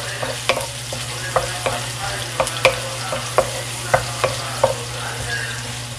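Finely chopped onion frying with a steady sizzle in a nonstick pan. A wooden spoon stirs it, knocking against the pan every half second to second.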